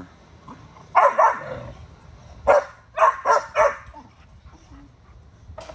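Pit bull-type dog barking: a double bark about a second in, then a quick run of four barks.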